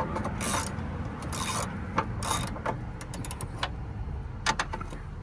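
Hand ratchet wrench clicking in short runs with pauses between them as a tight top motor mount bolt is worked loose, with a few last clicks near the end.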